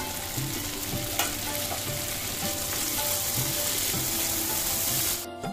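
Drumstick, potato and tomato pieces sizzling in hot oil in a kadai as the lid comes off, its condensed water dripping into the pan, and the vegetables are stirred with a wooden spatula. The sizzling is steady and cuts off abruptly near the end.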